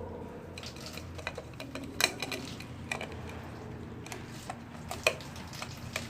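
Scattered light clinks and taps of handled hard objects, with two sharper knocks about two and five seconds in, over a steady low hum.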